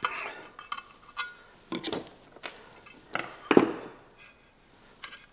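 Screwdriver and metal saw parts clinking and knocking on a workbench as the blade guard of an old Rockwell 368 circular saw is unscrewed and lifted off. A string of separate clinks and knocks, the loudest about three and a half seconds in.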